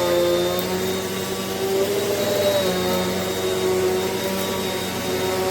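Eureka NEU10AE4 AirSpeed bagless upright vacuum cleaner running at full speed, a steady motor whine with its pitch wavering slightly now and then.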